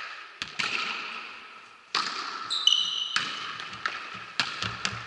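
Volleyball rally in a reverberant sports hall: a series of sharp slaps and thuds as the ball is struck by hands and forearms, the loudest about two seconds in, with a few short high squeaks in the middle.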